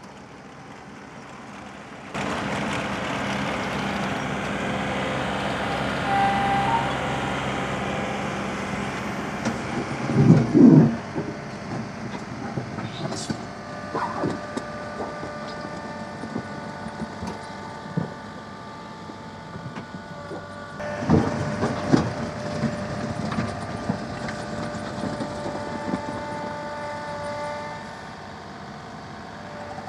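John Deere tractors' diesel engines running steadily under load as their front-end loaders scoop and dump dirt, with heavy thumps around ten seconds in and again a little past twenty seconds.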